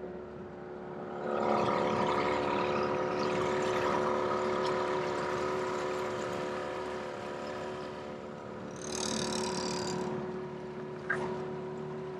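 Outboard motor on a small aluminium tinny running steadily under way, getting louder about a second in. A short burst of hiss sounds near the end.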